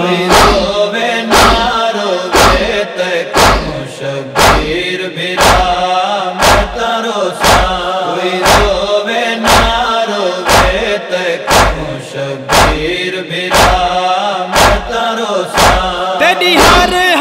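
Noha lament: male voices chanting a drawn-out wordless refrain over steady, heavy chest-beating (matam) thumps, about one a second.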